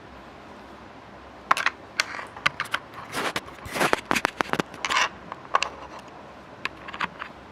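Camera and Boya BY-MM1 microphone being handled close to the recording mic: a run of irregular clicks, knocks and scrapes, starting about a second and a half in, as the mic is fitted to the camera and plugged in.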